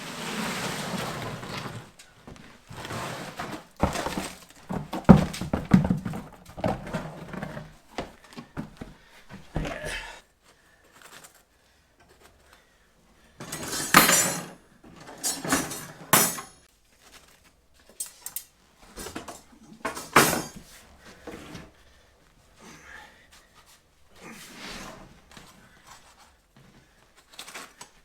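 Irregular scraping and knocking of tools working wet concrete mix: shovelling, tipping and spreading it in bursts, with a few sharp knocks.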